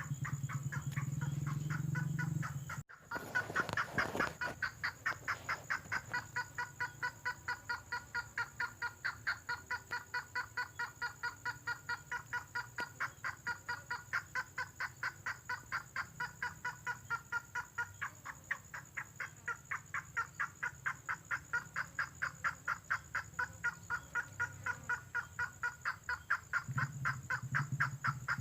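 Lure recording of the call of a tengkoah merah bird: a long, even run of short repeated notes, about three a second. The sound drops out briefly about three seconds in, then comes back with a louder burst before the steady series resumes.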